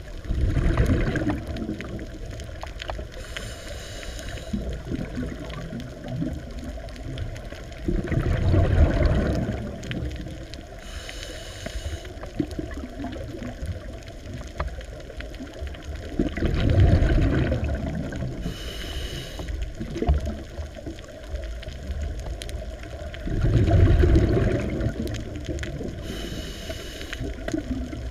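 Scuba diver breathing through a regulator underwater: a short high hiss of each inhalation, then a few seconds later a loud low bubbling burst as the exhaled air escapes, the cycle repeating about every seven to eight seconds.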